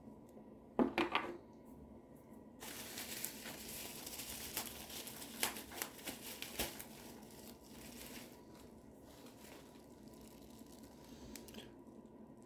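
Packaging crinkling and tearing as the next knife is unwrapped. The crackling, with many small clicks, is loudest from about two and a half seconds in to about eight seconds, then thins to light rustles.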